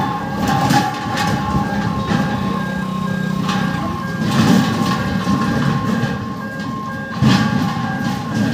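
Road traffic crossing a level crossing: motorcycle and car engines passing close by. Over it an electronic beeping repeats at an even rate throughout. There is a loud sharp noise about seven seconds in.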